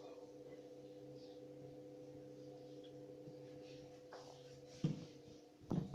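Pellet stove's fan running with a steady low hum. It cuts off abruptly about five seconds in with a knock, and another knock follows just before the end.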